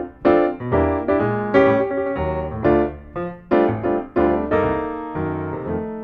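Background piano music: notes and chords struck about twice a second, each ringing and fading.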